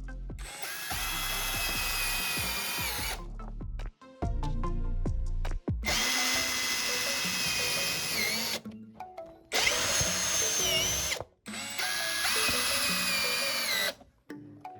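Electric drill running in four separate bursts, a steady high whine that dips in pitch near the end of some bursts as it takes load.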